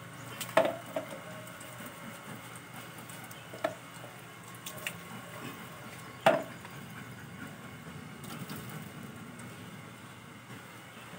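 A plastic water dipper knocking against the concrete floor while a dog is being soaped: two loud, sharp knocks with a brief ring, about half a second in and about six seconds in, and a few lighter clicks between them.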